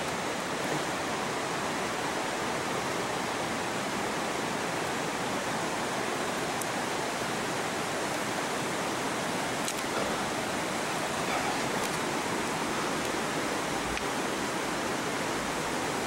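A steady, even rushing noise, like running water or hiss, with a few faint ticks.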